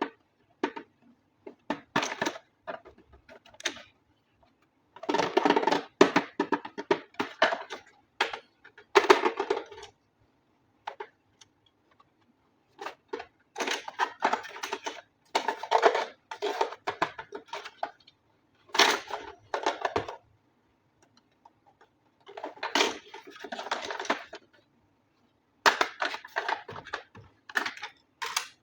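Handling noises from unboxing a toy: irregular rustling and crinkling with clicks and taps, coming in bursts separated by silent gaps.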